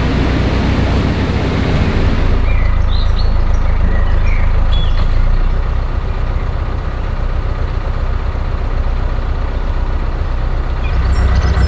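Narrowboat's diesel engine running steadily, a low rumble with an even tone. A hiss sits over it for the first couple of seconds.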